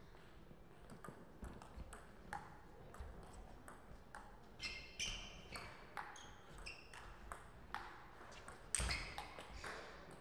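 Table tennis rally: the celluloid ball clicking off rackets and the table in a quick run of sharp pocks, two or three a second, with the loudest hit near the end.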